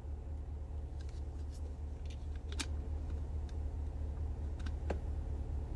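A few faint clicks and ticks over a steady low hum, from drinking out of a plastic bottle and handling it.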